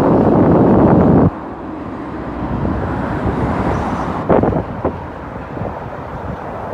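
Outdoor noise of road traffic and wind on the microphone. It is loud for the first second or so, then drops off suddenly to a lower steady rumble, with a couple of short knocks about four seconds in.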